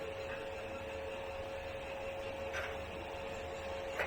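Quiet room tone with a steady hum and two faint light clicks, one about two and a half seconds in and one near the end.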